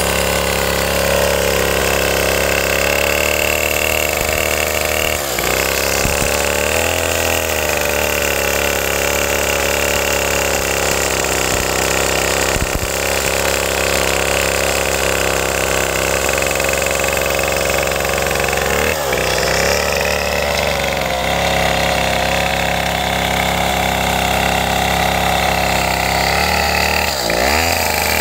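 Large Stihl chainsaw with a long bar running at high speed while cutting into a log, its engine pitch dipping briefly and recovering a few times as the chain takes load.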